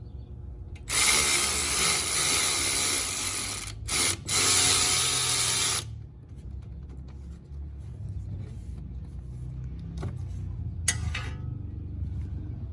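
Power tool spinning out a 7 mm Allen-head brake caliper bolt, in two runs of about three seconds and a second and a half. A few light clicks and a sharp metal clink follow near the end.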